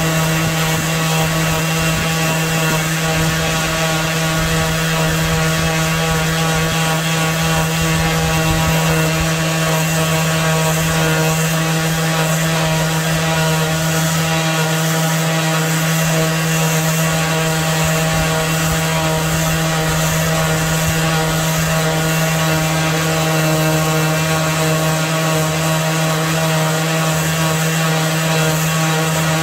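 Craftsman 20V cordless random-orbit palm sander running continuously with its sanding pad against a wooden cutting board: a loud, steady motor hum of unchanging pitch.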